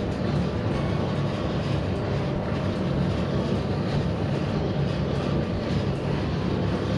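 Motor-driven noodle-making machine (mesin giling) running steadily: a constant low hum under an even mechanical rushing noise.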